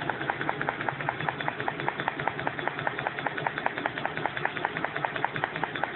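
Cough assist machine running, a steady low hum with a rapid, even pulsing of about seven ticks a second.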